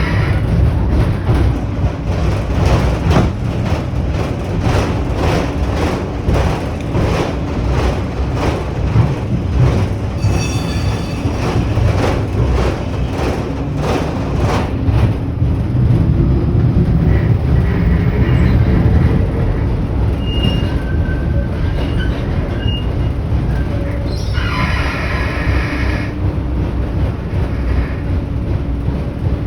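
Railway carriage wheels running on the track. Through the first half there are repeated knocks as the wheels cross rail joints, with a brief high squeal about ten seconds in. The second half is a smoother low rumble, with a short hiss near the end.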